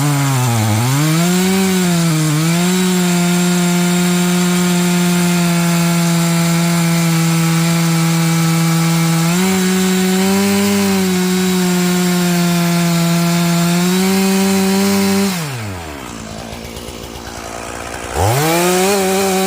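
Two-stroke Stihl MS461 chainsaw with a 32-inch bar cutting through a large Douglas fir log at full throttle. Its pitch dips twice in the first few seconds as it bogs under load, then holds steady. About fifteen seconds in the throttle is released and the engine drops to idle, then it revs back up to full speed near the end.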